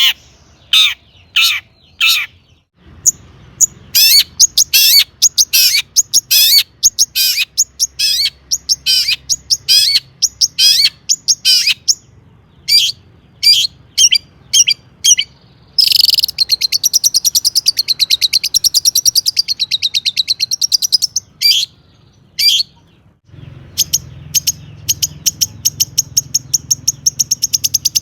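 Long-tailed shrike singing loudly: a string of sharp, high call notes, then a fast trill lasting about five seconds from just past halfway, and a quick run of repeated notes near the end.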